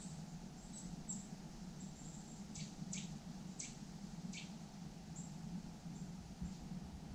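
Steady rush of a shallow river flowing past the angler's wading legs, with short high squeaky chirps over it, four in quick succession near the middle.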